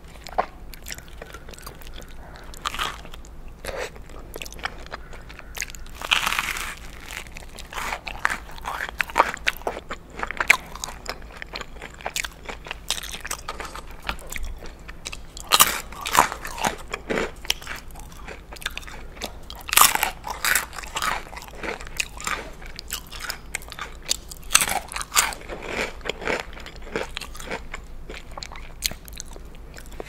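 Close-miked eating: biting and chewing a toasted grilled cheese sandwich dipped in tomato soup, with crisp crunches of the toasted crust and moist mouth sounds. Louder crunching bites come every few seconds between quieter chewing.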